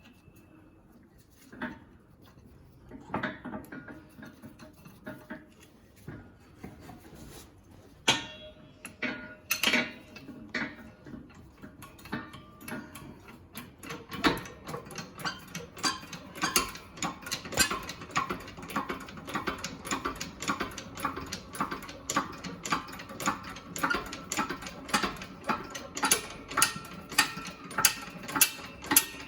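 Ratchet wrench clicking as it winds a bearing press tool, pushing a new rear wheel bearing into its housing. A few scattered clicks and knocks come first; from about halfway the clicks settle into a steady rhythm of about two a second.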